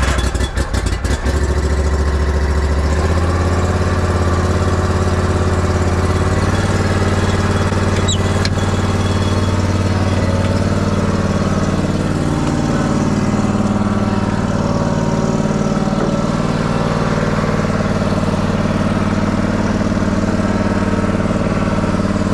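Stand-on zero-turn commercial mower's engine catching in the first second after starting, then running steadily, its pitch rising about three seconds in as the throttle comes up, while the mower is driven.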